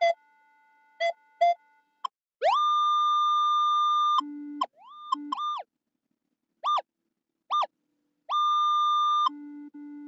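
Minelab Equinox 800 metal detector sounding off as the coil sweeps over gravel. There are several short beeps, a high tone that rises and holds for almost two seconds, and a quick chirp, then another held high tone about a second long. Steady low tones come in between the high signals and again near the end.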